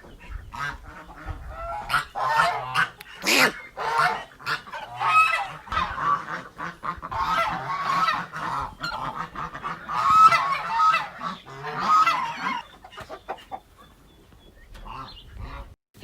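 A group of animals calling: many short, pitched calls overlapping in quick succession, densest through the middle and thinning out near the end.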